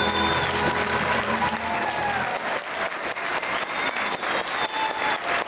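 Audience applause for a children's choir, beginning over the choir's last held chord and its accompaniment, which die away about two seconds in. A few voices call out over the clapping later on.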